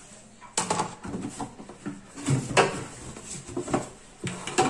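Plastic food containers being wiped dry by hand, a green plastic lid and a clear plastic jar: rubbing on plastic broken by a few sharp plastic knocks as they are turned and bumped, the loudest about half a second in, midway and near the end.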